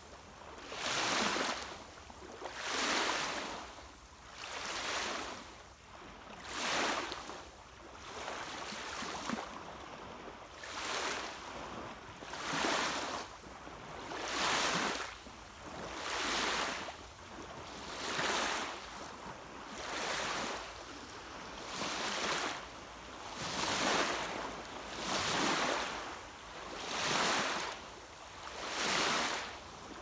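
Small waves lapping and breaking on a sandy shore, one wash about every two seconds, each a hiss that swells and fades.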